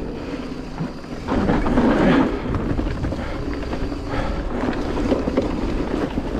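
Wind rushing over the microphone and an e-mountain bike's knobbly tyres rolling over a dirt trail on a fast descent, with a louder rush about a second and a half in.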